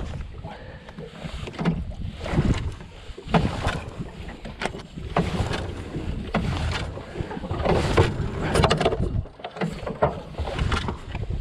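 Fishing rods and tackle being handled and packed away in an aluminium boat: irregular knocks and clatters of rods and gear against the hull and deck, over a low rumble of wind on the microphone.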